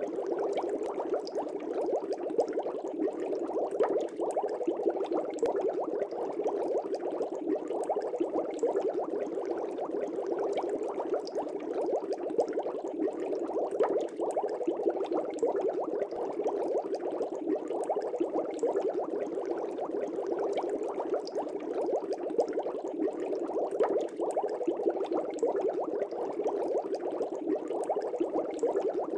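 Air bubbles streaming through aquarium water: a steady, dense bubbling made of many small pops close together.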